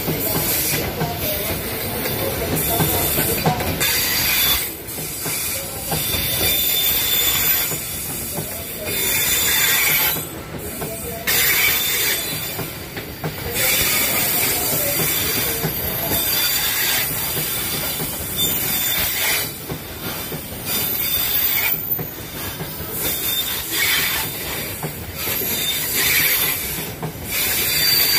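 Open-top coal wagons of a Babaranjang coal train rolling past, their steel wheels squealing shrilly against the rails on a sharp curve. The squeal swells and fades every few seconds as the wagons go by, over a steady rumble of wheels on track.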